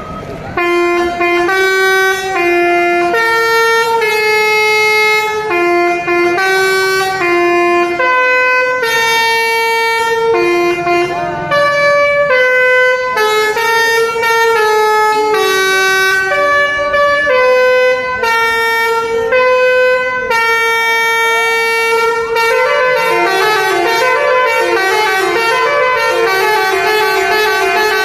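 Telolet basuri bus horn playing a birthday-song melody, one held horn note after another stepping up and down in pitch. In the last few seconds the notes come faster and overlap.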